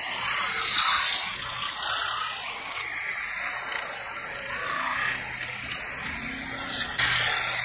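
Metal-spinning lathe turning a sheet-metal bowl blank while a hand-held spinning tool is pressed against it: a steady scraping hiss of tool on metal, with a few sharp clicks and a louder stretch near the end.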